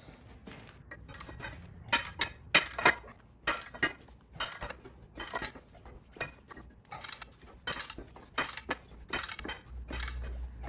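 Sharp metallic clinks and clicks, about two a second from about two seconds in, as a ratchet with a long bar extension is worked on the 1-inch hex center bolt of a Posi Lock Model 108 three-jaw gear puller.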